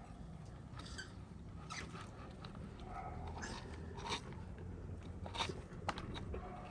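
Granular bonsai substrate (akadama, volcanic grit and charcoal) crunching and clicking as it is pressed and settled by hand around the roots in a ceramic pot. There are scattered soft gritty rustles and a few sharper clicks in the second half.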